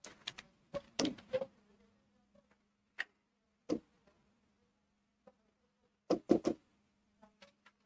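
Scattered sharp clicks, singly and in quick clusters of two or three, typical of a computer mouse being clicked, over a faint steady low electrical hum.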